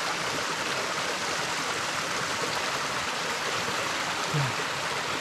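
Mountain stream rushing steadily over rocks, a constant even hiss of flowing water. A short low grunt from a person comes about four seconds in.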